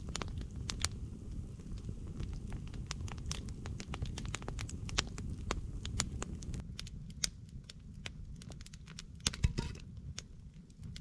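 Wood campfire crackling and popping with many quick sharp snaps over a low steady rush, with a couple of louder pops near the end.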